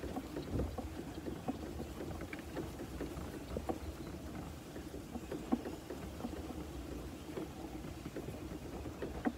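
Electric golf cart rolling along, with a steady hum and many small rattles and ticks from the cart over the bumps.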